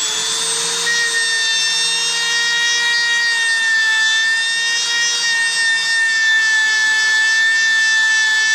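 Small Dremel rotary tool running fast with a felt polishing tip, a steady high-pitched whine made of several tones, as the compound-loaded felt is held against a piece of slag to polish it. A sharper tone joins about a second in.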